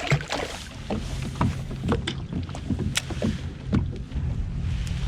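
Irregular splashes and sharp knocks at the side of a plastic fishing kayak, a dozen or so in quick uneven succession.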